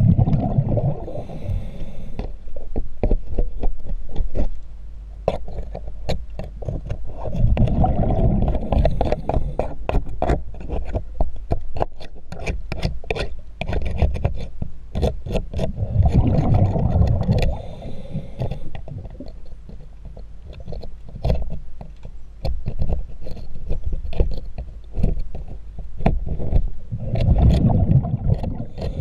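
Hand scraper scraping marine growth off a boat hull underwater: quick scratchy strokes and clicks. A scuba regulator's exhaled bubbles rumble over it about every eight to ten seconds.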